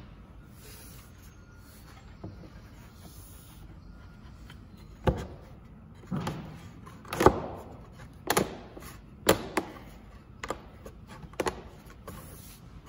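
MDF jig parts being pushed and knocked together by hand: after about five seconds of quiet, a run of sharp wooden knocks and taps, roughly one a second, as the joints seat.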